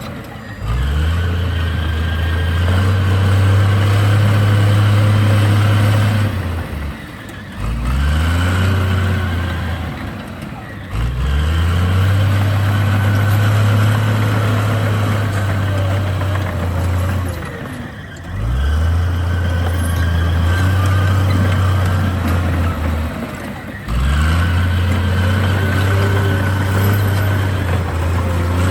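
Bulldozer's diesel engine working in repeated cycles: it revs up, holds a heavy, deep steady run for a few seconds, then eases off, about five times over.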